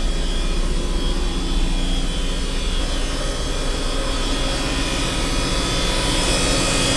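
The yacht's onboard diesel generators running: a steady machinery drone with a hum of several steady tones, growing a little louder near the end.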